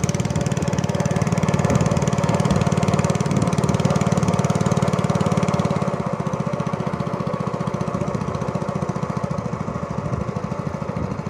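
Small boat engine running steadily, driving the boat along at low speed, with an even, rapid firing rhythm; it eases off slightly about halfway through.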